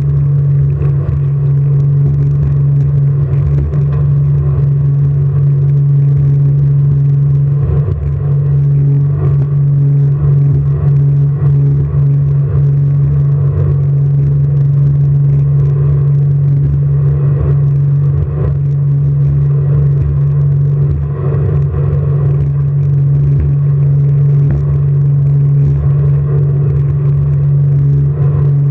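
Jet boat's engine running at a steady pitch, a loud constant hum with a rough rumble underneath.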